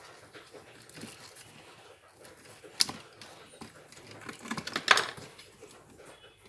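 Small clicks and rattles of electrical wires and plastic connectors being handled during switch wiring. There is one sharp click about three seconds in and a flurry of clicks near five seconds.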